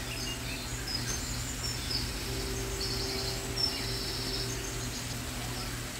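Broccoli slaw sizzling steadily in a hot pan, with a steady low hum under it and a few faint high trilling chirps in the middle.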